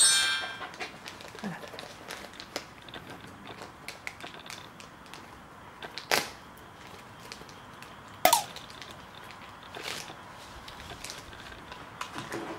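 Shiba Inu licking and smacking at a squeezed liquid treat from a tube, soft wet clicks throughout with a few sharp louder smacks about six and eight seconds in. A brief high-pitched sound right at the start.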